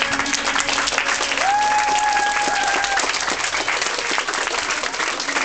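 Audience applauding as a dance routine's music ends, with one long, steady high call from someone in the crowd about a second and a half in.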